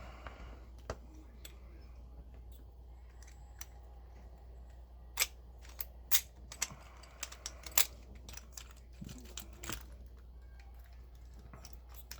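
Scattered sharp little clicks and taps from a Master Lock 410 lockout padlock and its pick tools being handled, a few isolated ones at first and a quick cluster in the middle, over a steady low hum.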